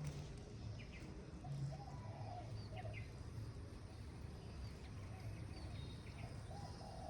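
Outdoor ambience: birds chirping and calling faintly, a few short chirps scattered through, over a steady low rumble.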